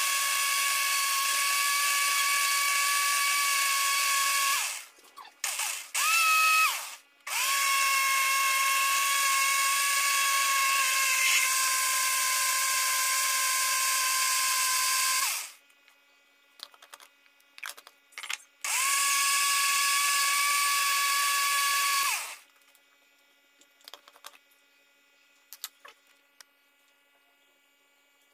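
Imarflex Multi-Blender's motor running with its small glass jar, blending shrimp, fish pellets and water: a steady high whine in three long runs of about five, eight and three seconds, with two short pulses between the first two, then it stops. A few clicks and knocks of handling follow near the end.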